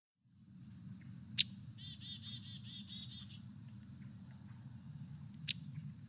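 A field recording of scarlet tanager calls. Two sharp, loud call notes come about four seconds apart, with a quick run of short repeated notes between them. Under them run a steady high insect trill and a low background rumble.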